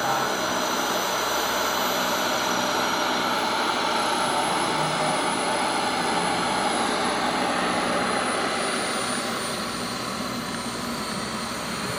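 Four JetCat P120 model jet turbines of a giant Airbus A380 model running as it taxis: a steady jet roar with thin high whines that slowly fall in pitch. It grows a little quieter over the last few seconds.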